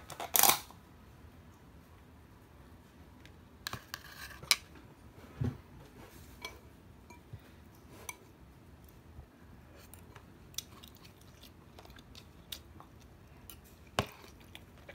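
A metal spoon scooping fried rice and clinking and scraping against a ceramic bowl, with sharp clicks at irregular intervals and some chewing. A short loud rustle comes right at the start.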